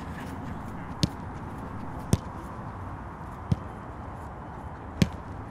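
Steady open-air background noise broken by four sharp thuds of footballs being struck, about a second or so apart and irregular, the last and loudest about five seconds in.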